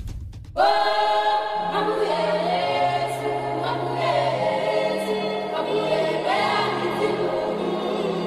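Background choral music: a choir holding slow, sustained chords over low held notes. It begins about half a second in, after a short tail of fading static.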